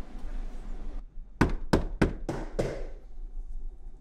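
Five quick knocks on a door in a row, starting about a second and a half in.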